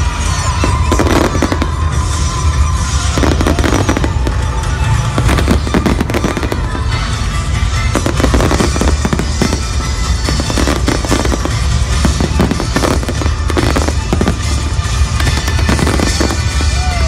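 Fireworks display: a dense, continuous barrage of bangs and crackling from shells bursting overhead, with no let-up.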